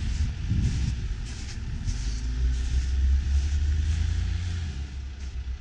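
Engine of an off-road 4x4 running at a distance, a low steady rumble that eases off near the end.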